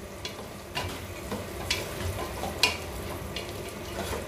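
Pork belly frying in its own rendered fat in a metal pot, sizzling steadily while a wooden spoon stirs it, with several sharp knocks and scrapes of the spoon against the pot.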